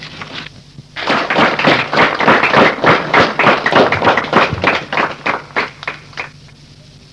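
Live audience applauding, starting about a second in and dying away over about five seconds.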